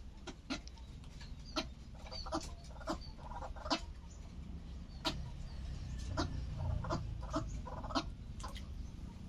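White-breasted waterhen making short, irregular clucks and clicks, a dozen or so spread unevenly, some in quick pairs, over a steady low hum.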